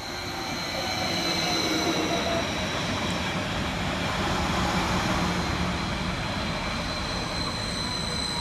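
Class 231 Stadler FLIRT diesel multiple unit running along the platform, its wheels rumbling on the rails, getting louder over the first two seconds. A steady high-pitched whine runs throughout, with a lower hum for the first two thirds.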